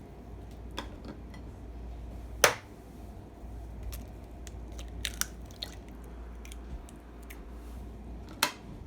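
Kitchen handling noises as ingredients go into a blender: scattered small clicks and taps, with a sharp click about two and a half seconds in and another near the end, over a low steady hum.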